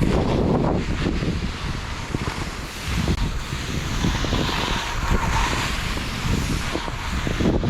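Wind buffeting the microphone, mixed with the steady hiss and rumble of skis sliding through heavy, wet snow.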